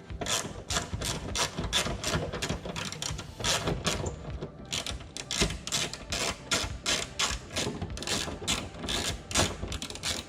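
Ratchet clicking in quick, even strokes, about three to four clicks a second, with a short pause partway through, as a Torx bit hammered into a drilled, rusted, headless screw backs the screw out.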